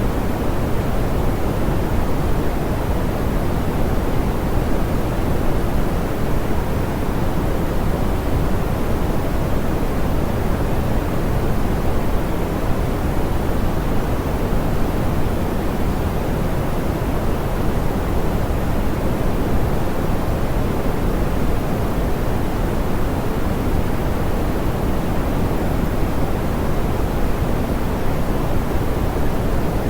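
Steady pink noise: an even, soft hiss weighted toward the low end, with the highs rolled off, unchanging throughout.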